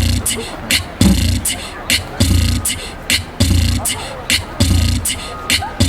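Beatboxed drum beat: deep kick sounds about once a second, with sharp snare and hi-hat sounds between them, in a steady groove.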